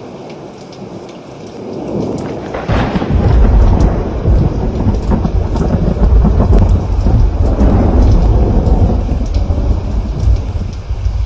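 Steady rain falling, then a thunderclap about two and a half seconds in that rolls into a long, loud rumble of thunder and fades near the end, with the rain going on underneath.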